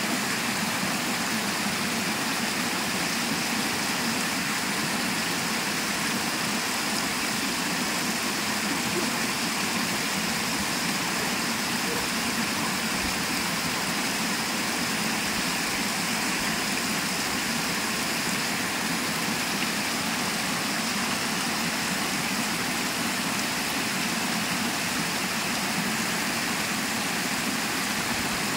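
Shallow water rushing steadily down a sloping concrete spillway, an even, unbroken rush.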